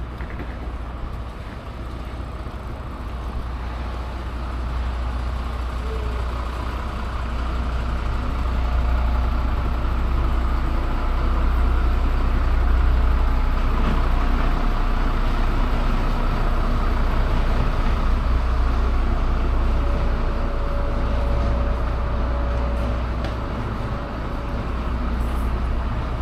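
A motor engine's steady low drone with a noisy hiss over it, growing louder about eight seconds in and then holding steady.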